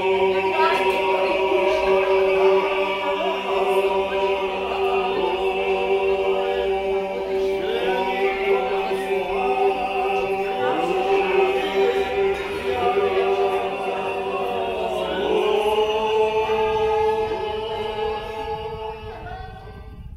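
A group of men singing a traditional Georgian polyphonic song a cappella. Several voices hold long notes in close harmony while others move around them, and the singing fades out near the end.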